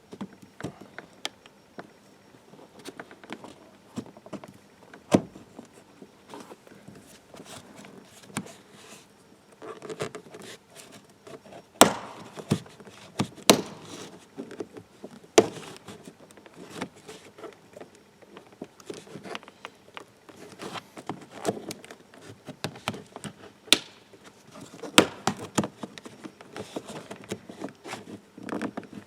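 Flat screwdriver levering the plastic window control panel out of a Peugeot 307's driver-door trim: scattered scraping and light clicking, with several sharp clicks and knocks.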